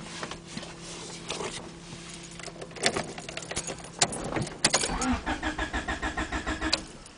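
A few clicks and knocks, then the starter cranks the 1990 Honda Accord's four-cylinder engine in a rhythmic churn of about six beats a second for roughly two seconds. It stops without the engine catching: a hard start.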